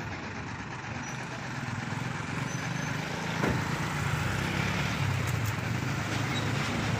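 Hino 500 diesel truck engine running steadily under load, getting a little louder about three seconds in.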